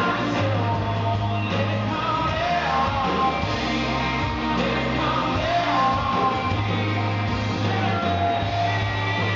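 Live country band performance: a male lead singer sings over strummed acoustic guitar and a full band with steady bass.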